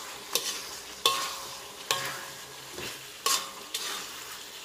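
Beef in a thick black sauce sizzling in a wok while a slotted spatula stirs it. The spatula knocks and scrapes against the wok about five times, each knock followed by a short ring from the pan.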